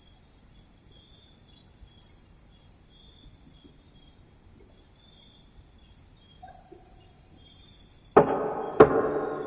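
Faint room noise with a brief hiss about two seconds in. Near the end a drinking glass is knocked twice, about half a second apart, and rings on as it fades.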